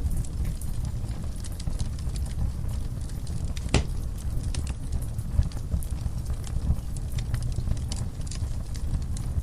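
Wood fire burning in a fireplace: a steady low roar of flames with scattered irregular crackles and pops, one sharper pop about four seconds in.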